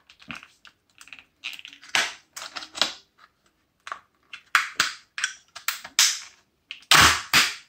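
Plastic casing of a laptop battery pack being pulled apart by hand: a string of sharp clicks and cracks as the casing's clips and glued joins give way, the loudest pair near the end.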